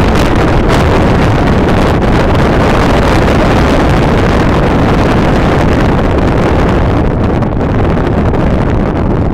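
Loud, steady wind buffeting the microphone.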